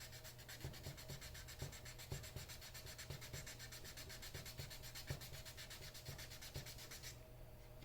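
Soft, rhythmic rubbing of 320-grit sandpaper worked by hand over a cured gel coat repair on a fibreglass dinghy rudder, about two back-and-forth strokes a second. The sanding is taking the filled patch down toward the original gel coat. The strokes stop near the end.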